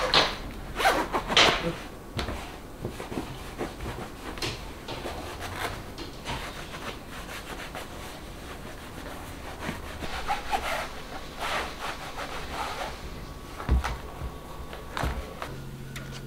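Clothing rustling as a fur-trimmed coat is taken off, then leather boots being rubbed and wiped by hand in repeated short strokes. Near the end there is a dull thump, followed by a low steady hum.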